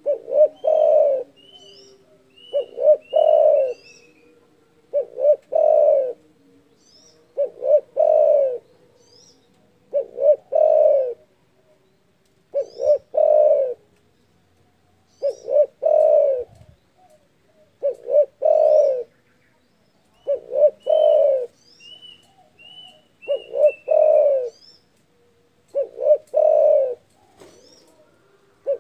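Spotted dove (derkuku) cooing steadily and repeatedly, a loud phrase of a few short notes and a longer one about every two and a half seconds. High thin chirps from a smaller bird come between the phrases.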